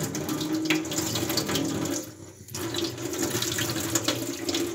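Tap water running onto frozen okra in a plate as it is rinsed, the stream dropping off briefly about two seconds in and then running again.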